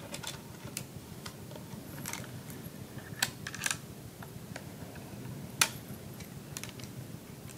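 A statue's long decorative chain being handled and threaded: irregular light clinks and clicks of the links, with two sharper clinks about three and five and a half seconds in.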